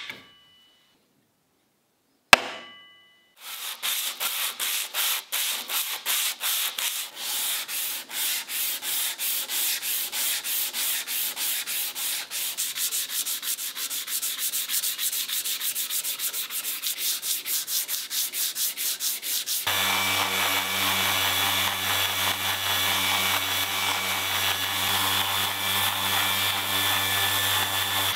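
Two sharp clicks as toggle clamps snap down on the cleaver's steel blade, which rings briefly after each. Then sandpaper on a wooden block rubs back and forth over the blade in quick strokes. About twenty seconds in, an electric sheet sander starts and runs steadily on the blade.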